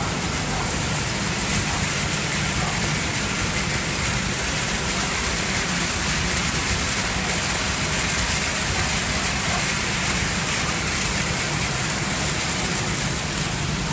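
Cotton waste cleaning machine running steadily: an even rushing hiss with a low hum beneath it.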